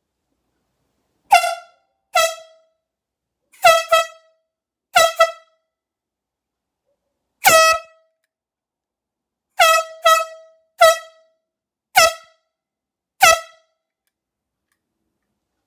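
An air horn sounded in a room in about a dozen short blasts, some in quick pairs. Each is one high honk that trails off in the room's echo.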